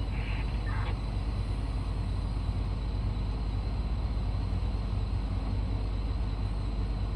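Steady, deep diesel engine drone of heavy mining machinery at work: a Komatsu PC2000 excavator loading a haul truck.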